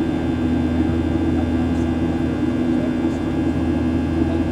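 Jet engines of a Southwest Airlines Boeing 737 heard inside the passenger cabin during the climb after takeoff: a steady drone with a strong low hum, unchanging in level.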